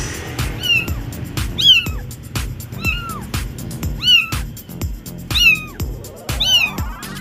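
Kitten mewing over and over, a high call about once a second, over background music with a steady beat.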